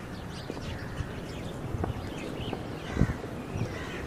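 Many small birds chirping over a low rumbling background, with a single thump about three seconds in.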